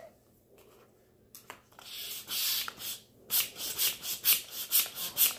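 Small manual air pump worked quickly, about four rasping strokes a second, after a few clicks and a short hiss, while trying to inflate a vinyl inflatable boxing glove. The pump doesn't seem to be filling it.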